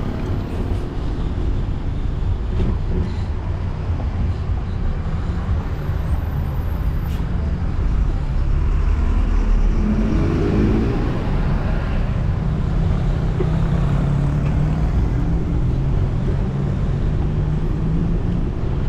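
Wind rumbling on the GoPro's microphone while cycling, with road traffic passing close by. About ten seconds in, a vehicle engine rises in pitch, and a little later a low engine hum holds steady for a few seconds.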